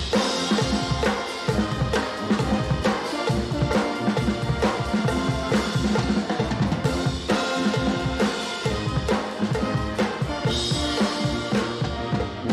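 Volunteer fire department band playing live, a drum kit keeping a steady beat under sustained instrument tones.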